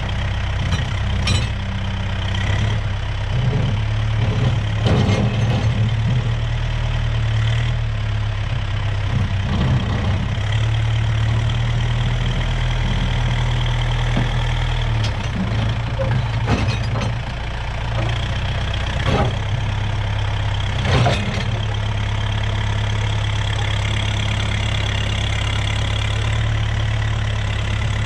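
Kubota M6040 tractor's four-cylinder diesel engine running steadily, with occasional clanks and knocks, the loudest about 21 seconds in.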